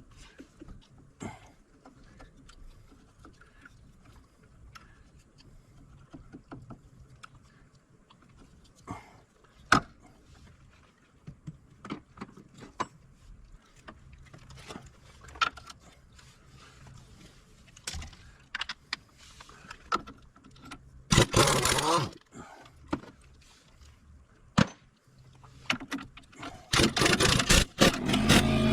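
Ingersoll Rand air impact wrench run in short loud bursts, one about two-thirds of the way through and several more near the end. Between them come scattered clinks and knocks of tools and metal parts.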